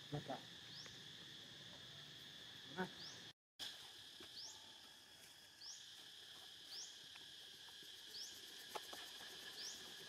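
Faint outdoor ambience: a steady high insect drone with a short rising chirp repeating roughly once a second, and two brief crackles in the first three seconds. The sound cuts out completely for a moment about a third of the way in.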